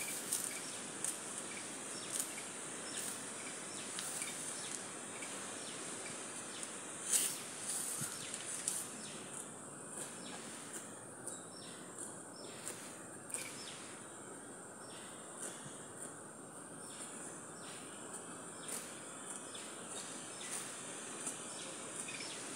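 Rural outdoor ambience: a steady high insect drone with many short clicks and chirps scattered through it.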